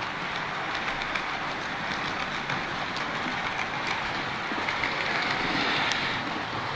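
Model train running along a layout's track: a steady whirring rush with light, irregular clicks of the wheels over the rail joints.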